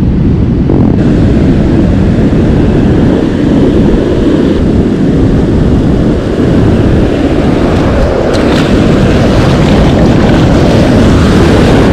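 Steady, loud wind rumble on the microphone over the rush of ocean surf washing up the beach.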